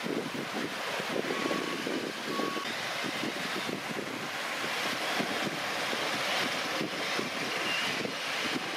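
RC Volvo 6x6 dump truck driving over beach sand, its drive running under a steady rush of noise, with two short beeps about a second apart near the start.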